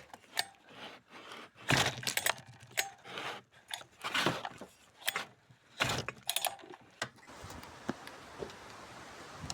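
Small metal parts and tools clinking, knocking and rattling as they are handled, in irregular bursts, with a quieter stretch near the end.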